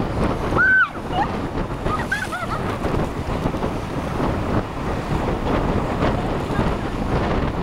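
Strong wind buffeting the microphone over waves washing on the lake, a steady rushing noise. Two short high calls come through in the first few seconds.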